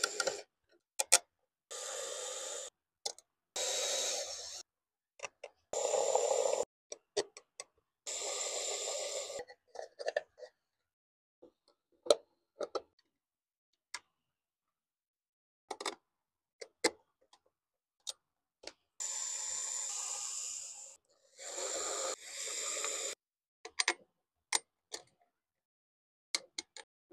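Cordless electric screwdriver driving small case screws with a hex bit, in about six short runs of a second or two each, with a long pause in the middle. Sharp clicks and taps of small screws and the metal case being handled come between the runs.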